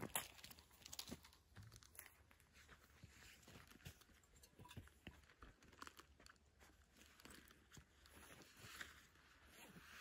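Faint, scattered crunches and rustles of footsteps on dry stubble and gear being handled and set down, with a sharper click at the very start.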